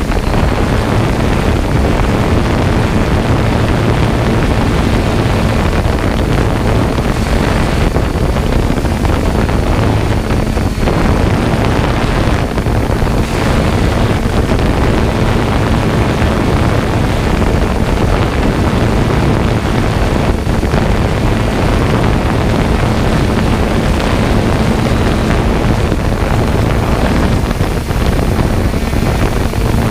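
Loud, steady wind buffeting the microphone over a low mechanical rumble with a faint steady hum.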